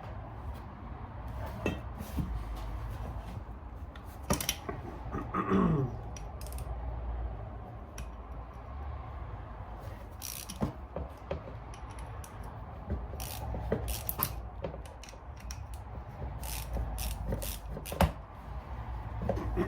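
Ratchet wrench clicking in short, irregular runs, with metal tools and parts clinking, as bolts are worked off an ATV engine's cases.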